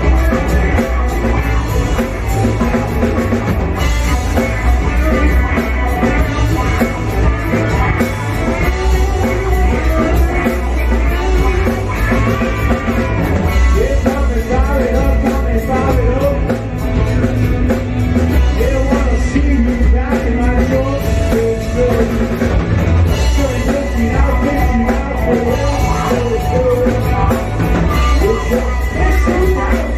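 Rock song by a full band: drum kit and instruments with a lead vocal, playing steadily and loud.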